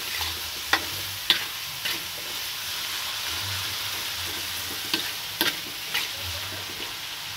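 Bean sprouts and chilies sizzling steadily in a hot metal wok while a metal spatula stirs them, scraping and giving several sharp clinks against the wok at irregular moments.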